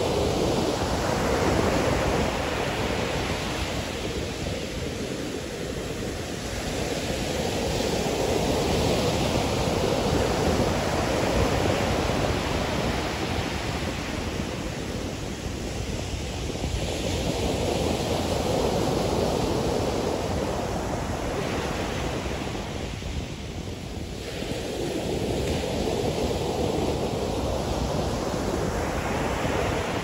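Ocean surf: waves breaking and washing up a sandy beach, a steady rush of water that swells and eases every several seconds.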